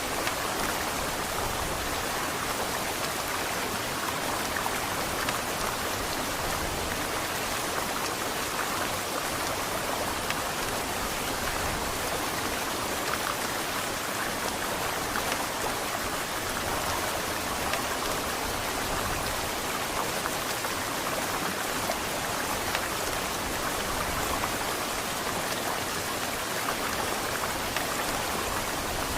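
Heavy rain falling steadily, a dense even patter with no thunder.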